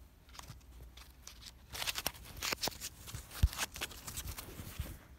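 Close handling noise: hands rustling and scraping over coins, paper penny rolls and the recording device, with scattered light clicks and one sharp knock about three and a half seconds in.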